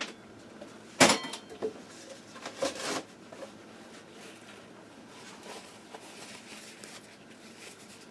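A single sharp clink of kitchenware being set down on the counter about a second in, then a brief rustle and faint handling noise.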